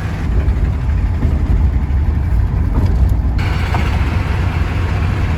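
Steady low rumble of a van's engine and tyres heard from inside the moving vehicle, with road and wind hiss that grows louder about three and a half seconds in.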